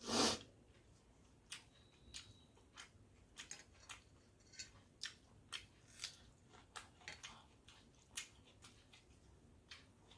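Close-up eating sounds: a loud sharp bite at the very start, then a string of short, irregular wet clicks and smacks of chewing.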